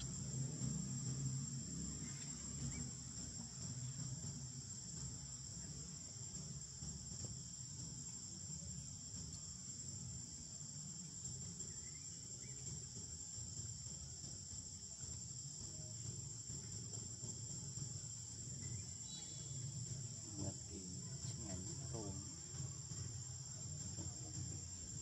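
Steady high-pitched insect chorus droning without a break over a low background rumble, with a few faint short calls near the end.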